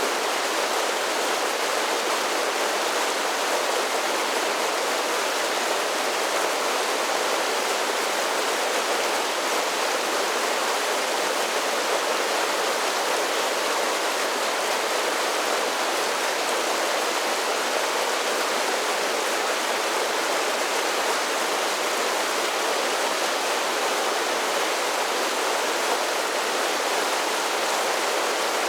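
Mountain creek cascading over a series of small falls: a steady rushing of water, even and unbroken.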